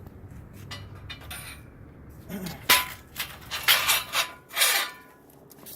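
Metal parts being handled: a few light ticks, then about two seconds in a run of loud clanks and rattles, some with a short metallic ring.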